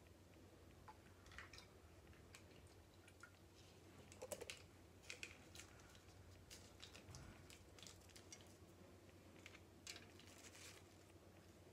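Near silence with faint, scattered small clicks and rustles of hands handling cut rose stems and scissors, a little louder about four to five seconds in.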